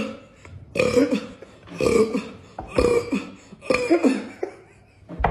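A person burping about five times in a row, roughly one burp a second.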